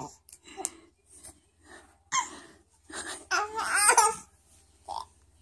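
A baby babbling and squealing in short separate bursts, with the loudest, high-pitched squeal about three to four seconds in.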